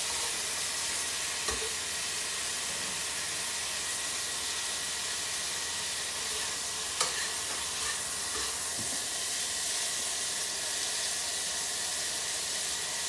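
Pieces of chicken sizzling steadily as they fry in a wok, stirred with tongs that click against the pan a few times, loudest about seven seconds in.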